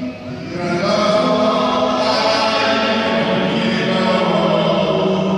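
A congregation singing or chanting together in long held notes, growing louder about a second in.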